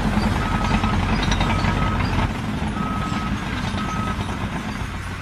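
Vehicle reversing alarm sounding four steady half-second beeps about a second apart, over the low rumble of a heavy engine running. The engine rumble drops off about two seconds in.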